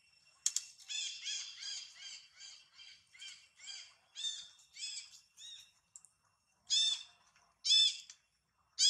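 A quick run of short, high, harsh animal calls, about three a second, fading, then three louder single calls about a second apart near the end.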